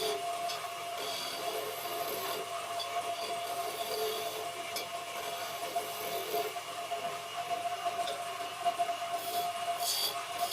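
Wood lathe running with a steady hum while a turning tool scrapes and cuts the spinning wood, a continuous rasping over the motor tone.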